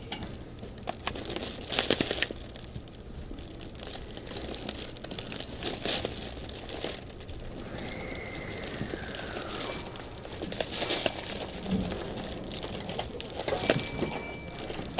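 Railway station platform ambience: a steady low hum with close rustling and scattered footsteps and clacks. About eight seconds in, a high tone glides downward for about two seconds, and near the end a short ringing tone sounds.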